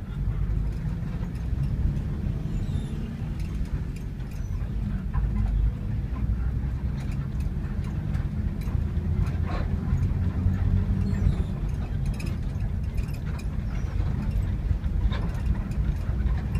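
Steady low rumble of a coach bus's diesel engine and road noise heard from inside the cabin while it drives, with scattered light clicks from the cabin.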